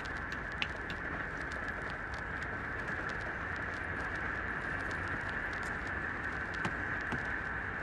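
Puppy suckling at its mother's teat: a run of small, irregular clicks and smacks over a steady high hiss.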